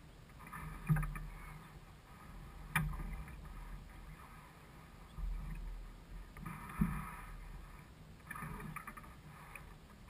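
Water slapping and gurgling against the hull of a small sailboat under way, in irregular bursts a few seconds apart, with a few short knocks.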